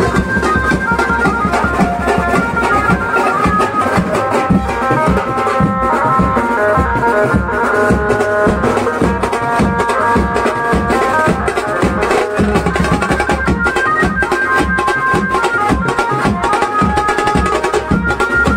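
Loud music with a steady, regular drum beat under a line of held melody notes.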